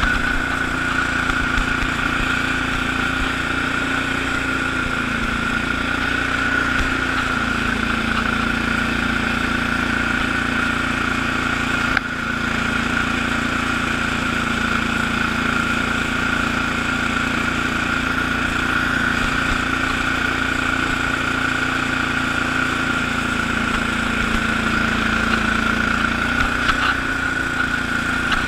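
Allis-Chalmers HB-112 garden tractor's engine running steadily under load as it drives a 48-inch Sweepster rotary broom through snow, heard from the operator's seat, with a steady high whine over the engine. The level dips briefly about halfway through.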